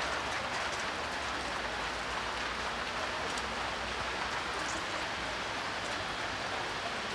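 Steady hiss of falling rain, with a low rumble that fades out about halfway through.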